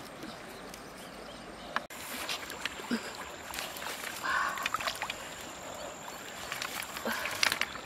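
Scattered small clicks and knocks of green bamboo being handled and bound by hand, over a steady background hiss. The background changes abruptly about two seconds in.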